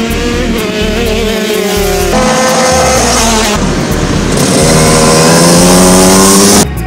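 Racing go-kart engines running at speed past the track. Near the end one kart's engine note rises steadily as it accelerates past, then the sound cuts off suddenly.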